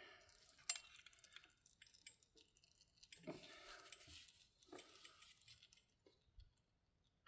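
Faint, scattered clicks and short scrapes of a screwdriver prying at a stuck oil filter housing cover on a Honda TRX300EX ATV engine, with a sharp click about a second in.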